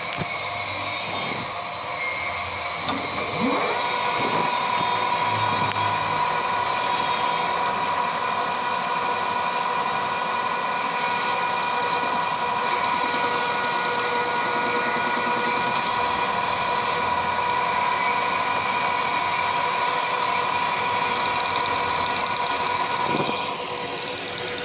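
Metal lathe running while turning a pipe down into a bushing. About three and a half seconds in, a steady high whine sets in as the tool cuts, and it stops near the end.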